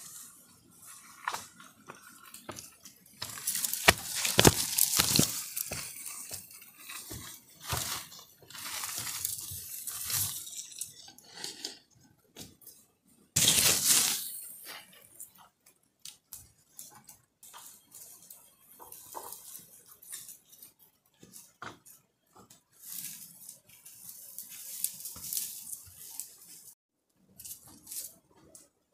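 Rustling footsteps through tall grass and undergrowth, with a long bamboo pole brushing and scraping through the leaves, in irregular bursts with occasional sharp knocks.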